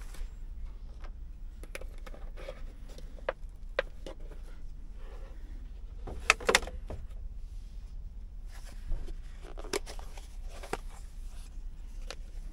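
A series of short clicks and knocks, objects being handled and set down, over a steady low hum; the loudest two come close together about six seconds in.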